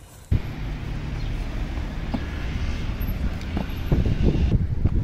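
Steady outdoor rumble and hiss, heaviest at the low end, that starts abruptly about a third of a second in, with a few soft knocks near the end.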